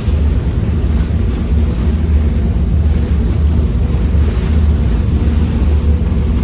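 Passenger ferry's engine rumbling steadily, with water rushing past the hull and wind on the microphone.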